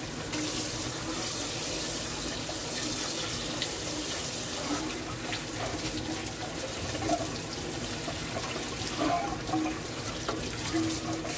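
Kitchen tap water running and splashing onto a black pot in a stainless steel sink as the pot is scrubbed by hand.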